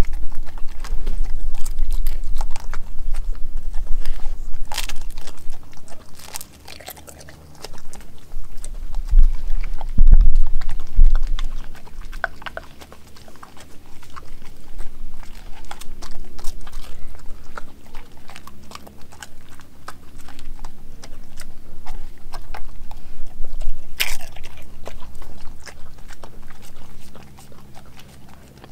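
A German shepherd-type dog chewing and crunching raw food off a plastic cutting board, with many quick wet clicks of teeth and tongue and a sharp crunch near the end. Dull low thumps come a couple of times early on, loudest about ten seconds in.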